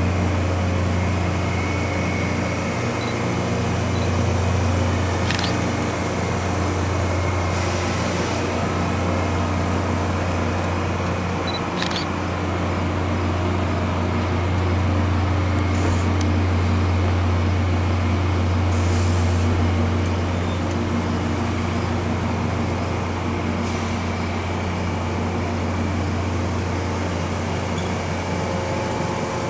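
VIA Rail passenger train of stainless-steel Budd cars rolling slowly past, with a steady low hum and now and then a sharp click.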